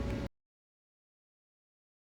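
A brief moment of low steady background noise with a faint steady hum, which cuts off abruptly about a third of a second in, leaving total silence.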